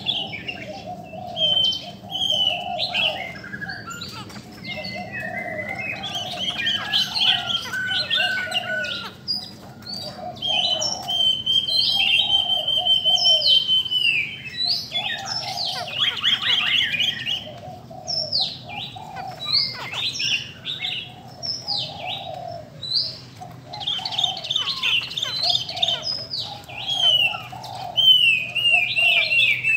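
Caged laughingthrushes singing long, varied runs of loud whistled phrases, with one long held whistle partway through. Beneath them a lower note repeats about once a second.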